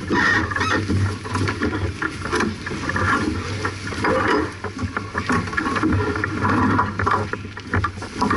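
Noise aboard a J/24 keelboat sailing under way: water rushing and splashing against the hull in uneven surges, with scattered clicks and knocks.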